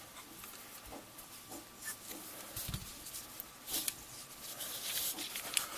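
Hands handling a small metal red dot sight: faint rubbing and a few light clicks, with a soft thump a little before the middle.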